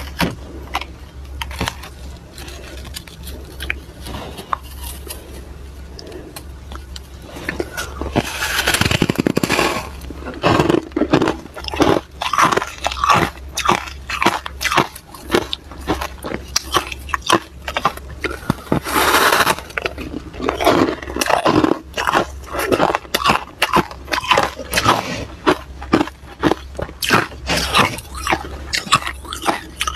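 Freezer frost crunching as it is bitten and chewed, a rapid run of crisp crunches. A few quieter crackles as the frost is handled come first, then the crunching grows louder and denser from about eight seconds in.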